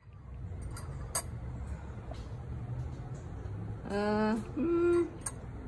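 Low room hum with a few light clicks, then, about four seconds in, a person's voice makes two short wordless sounds in quick succession, the second a steady hum-like note.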